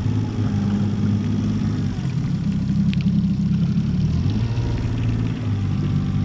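A boat motor running steadily at low speed, moving the boat, with a brief dip about four and a half seconds in; it stops near the end.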